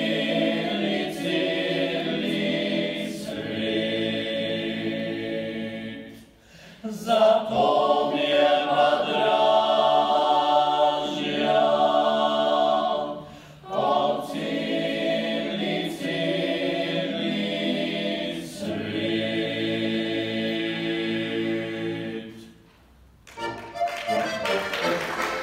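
A choir singing unaccompanied, in long held phrases with brief pauses between them. Near the end the singing stops and instrumental music begins.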